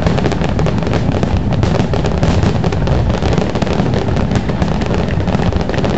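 Fireworks display going off: a dense, continuous barrage of crackles and bangs over a steady low rumble.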